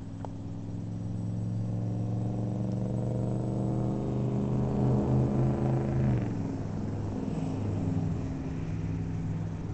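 Electric RC plane's brushless motor and propeller humming steadily as the plane flies past overhead. It grows louder, then drops slightly in pitch and eases off about six seconds in.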